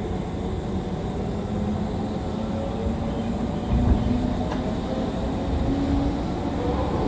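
JNR 185 series electric train running: a steady low rumble of wheels on rail with faint steady motor tones. A single thump comes about four seconds in.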